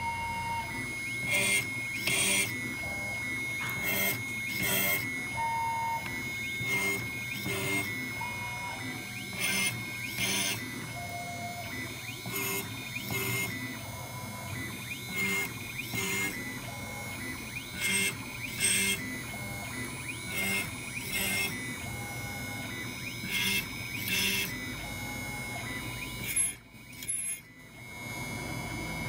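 CNC router spindle whining steadily while drilling an aluminium heatsink, with a short cutting burst each time the drill plunges into the metal, about every second or so. The sound drops away briefly near the end, then the cutting resumes.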